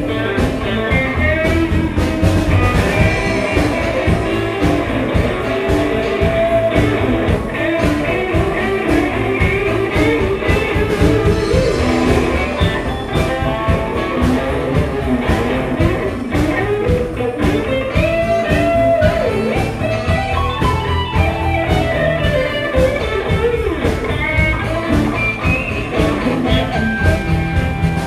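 A live blues band plays, with electric guitar to the fore over drum kit and keyboard.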